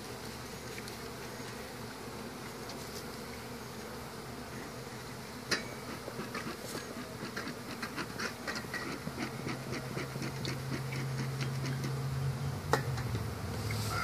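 Honey bee colony buzzing steadily while comb is worked out of the hive by hand and knife, giving a run of small ticks and scrapes and two sharp clicks, one about five seconds in and one near the end. A steadier low hum joins the buzz about nine seconds in.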